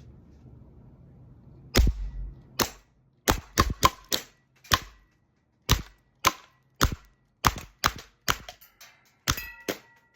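A gas blowback airsoft pistol, a WE M9 Beretta, firing about sixteen shots in an uneven rapid string. Each shot is a sharp crack. The string starts about two seconds in, after a short quiet.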